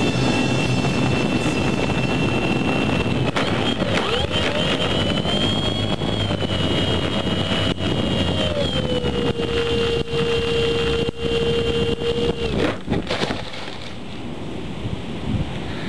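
Small motor of a homemade radio-controlled soda-bottle boat running with a steady whine over water and wind noise; its pitch wavers about four seconds in, steps down about eight and a half seconds in, and the motor stops about twelve and a half seconds in.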